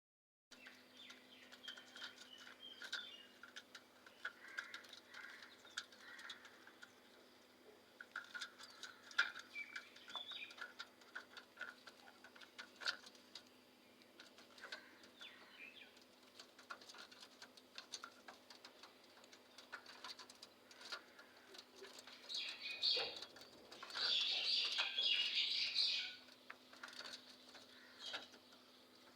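Small parrots chirping and chattering, with scattered clicks and light taps throughout and a louder stretch of dense calling near the end, under a faint steady hum.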